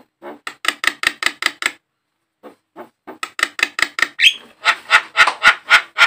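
Javan myna giving rapid runs of harsh, evenly spaced chattering notes: a short run of about seven notes, a brief pause, then a longer run that grows louder toward the end.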